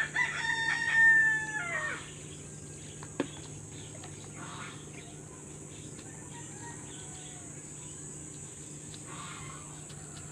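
A rooster crowing once, a call of about two seconds that drops in pitch at the end. About three seconds in there is a single sharp click, over a steady high insect buzz.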